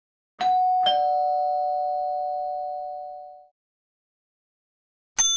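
Two-tone doorbell chime: a higher "ding" then a lower "dong" about half a second later, both ringing out and fading over about three seconds. Right at the end a sharp, bright metallic strike begins.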